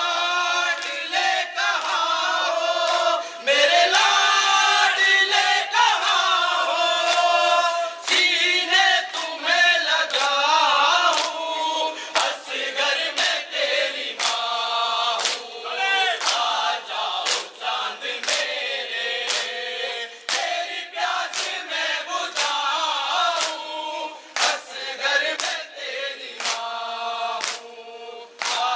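A crowd of men chanting a noha (Muharram lament) together, with sharp rhythmic hand strikes of matam (chest-beating) about once a second, keeping time with the chant.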